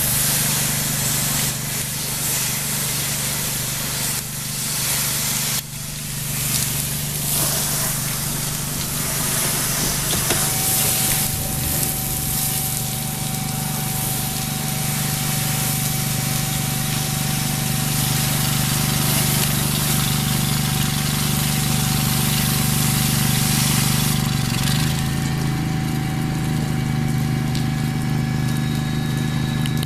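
Pressure washer running, its engine and pump droning steadily while the wand blasts a high-pressure water spray with a loud hiss. The spray eases off about three-quarters of the way through while the engine keeps running.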